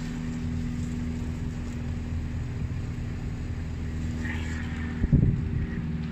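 Outdoor air-conditioner units running in cooling mode: a steady hum of compressors and condenser fans with several fixed low tones. A brief loud low thump about five seconds in.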